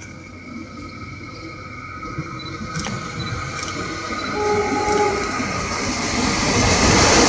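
CC 201 diesel-electric locomotive approaching with a train, its engine and wheels on the rails growing steadily louder as it nears. A short horn note sounds about four and a half seconds in.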